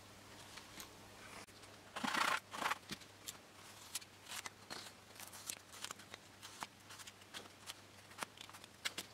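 Balsa wood block being cut by hand with a small blade: a scraping rasp about two seconds in, then a run of short, light scrapes and ticks.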